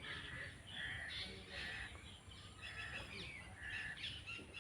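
Birds calling in the background: a faint chorus of short calls repeating about twice a second, with quick higher chirps among them.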